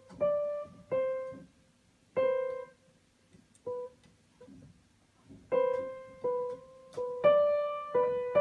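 Upright piano keys pressed by a cat's paws: scattered single notes with pauses between them, then several notes ringing together near the end.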